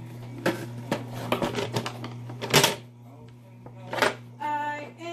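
Hard plastic toys and a plastic toy pet carrier being handled: a series of sharp clicks and knocks, the loudest about two and a half seconds in. Near the end a child's voice sounds briefly.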